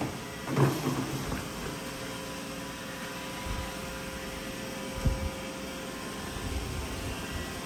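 Steady room hum of a running fan or air-conditioning unit, with thin constant tones in it. A sharp knock comes about half a second in and a short dull thump about five seconds in, as a small paint pot and roller are handled.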